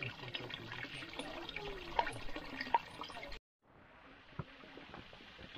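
Water pouring from a spout into the stone basin of a shrine purification fountain (chozuya), a steady splashing flow. After a short break about three and a half seconds in, a quieter flow of shallow water running over a stone channel.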